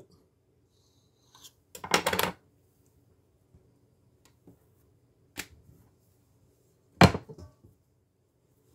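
A kitchen knife cutting a thin sheet of rolled samosa pastry in two on a hard countertop: a quick cluster of knife taps and clicks about two seconds in. A faint click follows later, then one sharp, loudest knock near the end.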